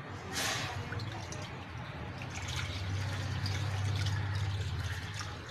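Milk pouring from a plastic milk packet into an aluminium pan, a steady liquid pour with a low hum underneath.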